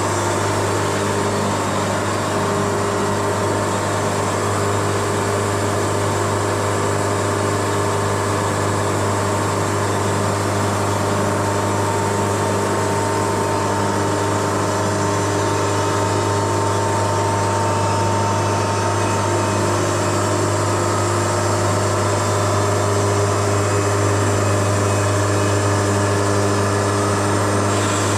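Wood-Mizer LT70 sawmill running steadily: a constant low engine hum with steady machine tones above it, unchanging in level.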